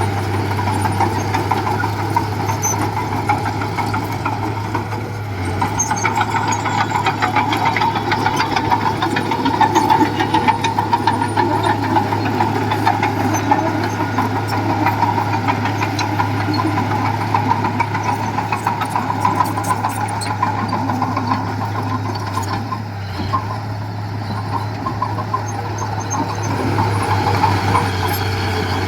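Diesel engine of heavy earthmoving machinery running steadily, with a dense, continuous clatter of rapid ticks over its hum.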